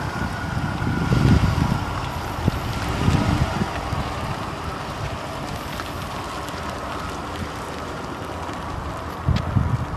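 Wind buffeting the microphone in uneven low gusts over a steady outdoor hiss: strong about a second in and around three seconds, calmer through the middle, and picking up again near the end.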